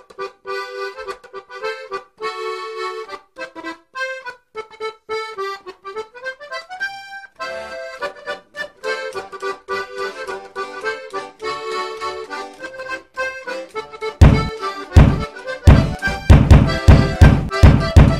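Accordion-led music, with one note sliding upward about six seconds in. About fourteen seconds in, heavy thumps join and quicken to about three a second, louder than the music.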